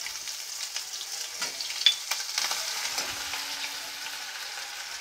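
Ginger-garlic paste, cumin seeds and dried red chillies sizzling in hot oil in a metal kadhai, a steady hiss, with a spatula stirring and scraping against the pan and a few sharp clicks in the middle.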